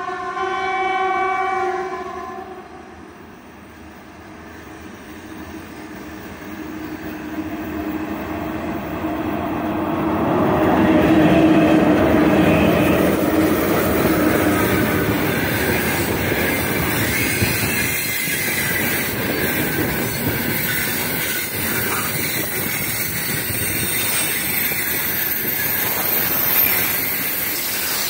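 Freight train hauled by a 3ES5K Ermak electric locomotive. Its horn sounds one chord-like blast of about two seconds at the start. The rumble then swells as the locomotive passes close by and gives way to the steady rolling noise and wheel clatter of the wagons going past.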